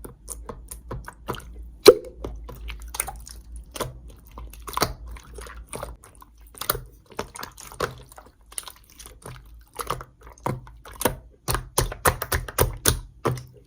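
Slime being squished and pressed by hand, giving irregular wet clicks and pops, with a sharp pop about two seconds in and a quicker, louder run of them near the end.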